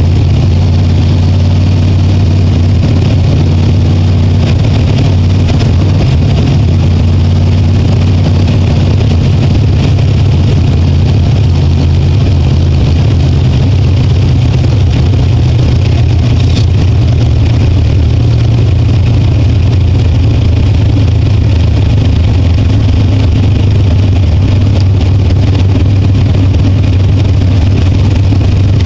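Dirt-track race car's engine running hard on hot laps, recorded from a camera inside the car: a loud, steady engine drone with little change in pitch.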